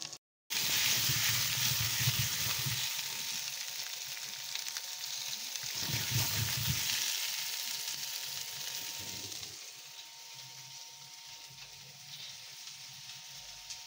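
Food frying in hot oil in a nonstick frying pan, a steady sizzle that is loudest in the first few seconds and quieter toward the end.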